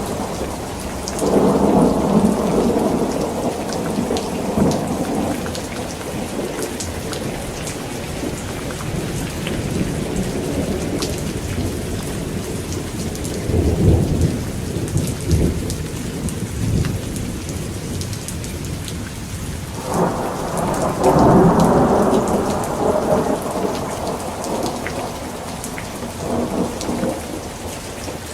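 Steady rain falling, with fine patter of drops throughout, while thunder rolls in three long rumbles: one about a second in, one about halfway through, and a stronger one near the end.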